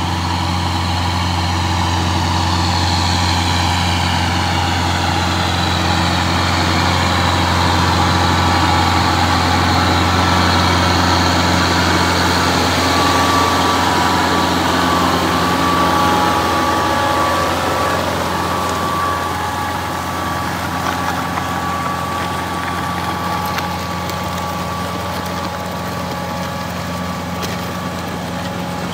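Kubota compact tractor's diesel engine running steadily as the tractor drives past pulling a box blade, growing a little louder toward the middle and easing off as it moves away.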